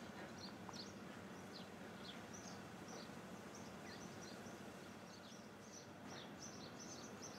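Faint outdoor ambience: small birds chirping, many short high chirps scattered throughout, over a steady low hum.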